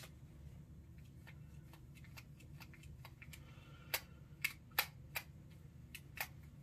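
Spinning fishing reel handled and wiped down after oiling: light clicks and ticks throughout, then several sharper clicks about two a second in the second half.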